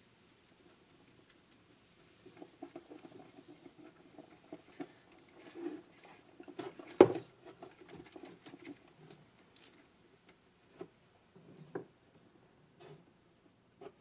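Gloved hands handling a new 12-volt starter solenoid and its wiring: scratchy rustling and small scattered clicks, with one sharp knock about seven seconds in.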